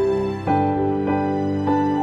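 Background music: a slow, gentle melody of held notes that change about every half second.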